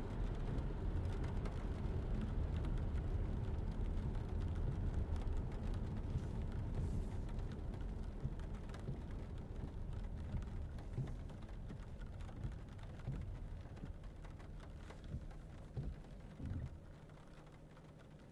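Inside the cabin of a 2022 Lexus ES300h driving on a wet road: steady low tyre and road rumble with rain ticking lightly on the glass. The sound grows steadily quieter over the last few seconds.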